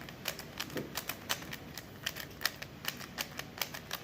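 Rubik's cube being turned quickly by hand, its plastic layers clicking sharply about four to five times a second in an uneven rhythm as the same short move sequence is repeated.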